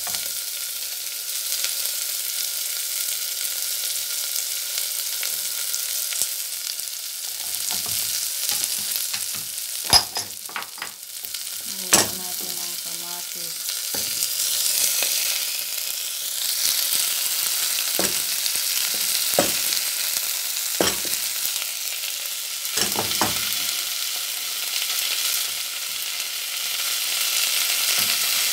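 Sliced onions sizzling in hot oil in a stainless steel pot: a steady frying hiss. Sharp knocks every few seconds as a wooden spoon stirs against the pot, the loudest two about ten and twelve seconds in.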